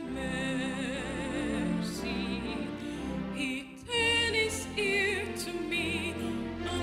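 A woman's solo soprano voice singing a slow sacred song with a wide vibrato, over a steady low accompaniment. She takes a short breath about halfway through and starts a new, higher phrase.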